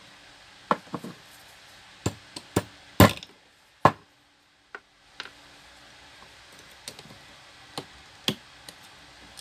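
Irregular sharp clicks and knocks of a new bush and its spring clip being pressed and levered into a stand fan motor's metal end cover by hand and with pliers; the loudest knock comes about three seconds in.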